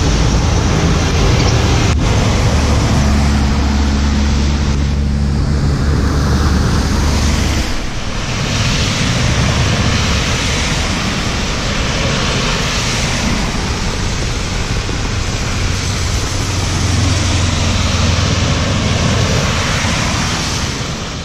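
Vehicles driving through a flooded road. A truck's engine drones steadily for the first eight seconds or so. Then cars' tyres hiss through standing water, throwing up spray, and another vehicle drones past near the end.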